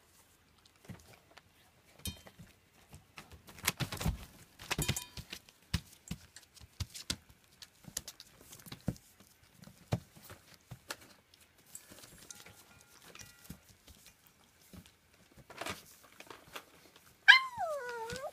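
German Shepherd puppies eating from stainless steel bowls: scattered clinks and knocks of the bowls as they feed. About a second before the end one puppy gives a short whine that falls in pitch.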